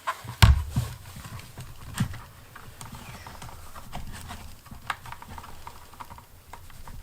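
Hands and tools knocking and clicking against a plastic ATV headlight housing while working rubber grommets out of it: a loud thump about half a second in, then scattered lighter taps and clicks.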